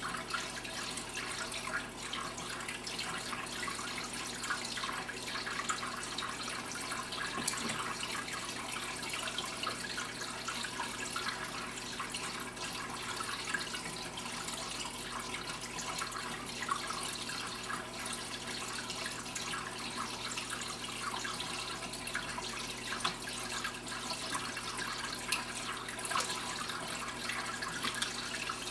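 Water trickling and splashing steadily as it circulates through an overflow aquarium, with a low steady hum underneath.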